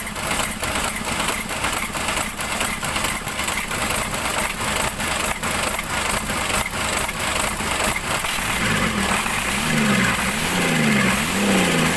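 Mitsubishi Fuso Fighter's 6M61 six-cylinder diesel engine running with a regular clatter after its hard-starting fault has been fixed. From about three-quarters of the way in, the engine speed rises and falls over and over, about once a second, the way the mechanic describes the engine "breathing".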